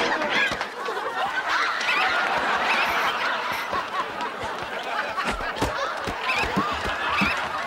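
Sitcom studio audience laughing and whooping throughout, with several dull thumps in the second half as people hit the floor during the slapstick scuffle.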